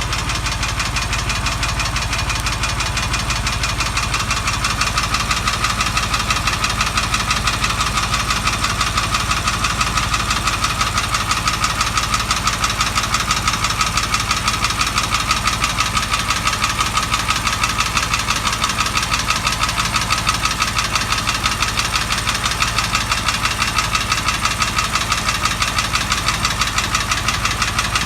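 Porsche 911 (997) water-cooled flat-six engine running steadily at idle, with a rapid, even knocking in time with the engine. This is the abnormal engine noise of a fault case.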